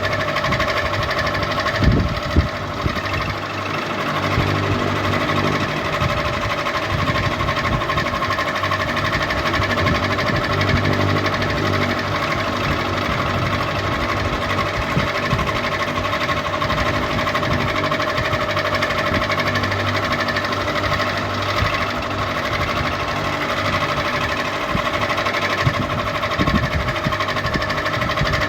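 Ceiling fan running steadily: a constant motor hum over an uneven low rumble, with two sharp knocks about two seconds in.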